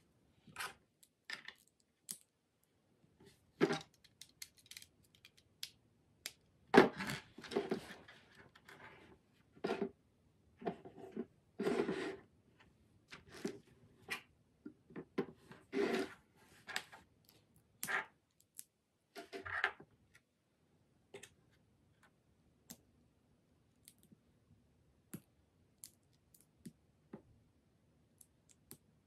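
Plastic LEGO bricks clicking and clattering as they are picked up, set down on a wooden table and pressed together, in irregular clicks and short rattles. These are thickest in the middle and thin out to occasional single clicks near the end.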